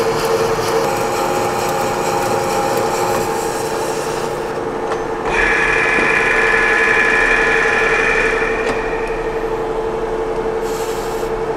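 Large manual engine lathe turning a solid 1045 steel bar, the tool cutting steadily over a constant gear whine. About five seconds in the cut gets louder and a higher-pitched whine joins it for about three seconds before fading.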